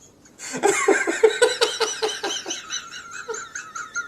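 A person laughing hard: a fast run of "ha-ha" bursts starting about half a second in and tapering off toward the end.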